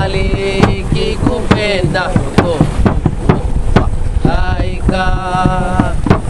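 Singing voices, with held, wavering notes, over a low wind rumble on the microphone and scattered sharp knocks.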